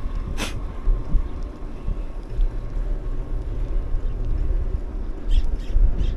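Wind buffeting the microphone on a moving ride, a steady low rumble throughout. A brief hiss about half a second in, and a few quick high chirps near the end.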